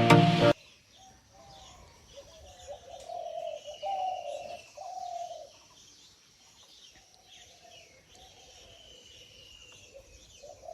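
Background music cuts off about half a second in. Doves then coo repeatedly in short calls, with fainter small-bird chirps and a thin falling call higher up.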